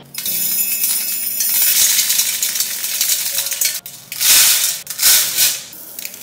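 Dry idli rice grains pouring into a stainless-steel tumbler and spilling into a steel bowl: a steady rattling hiss of grains on steel for nearly four seconds, then two shorter pours.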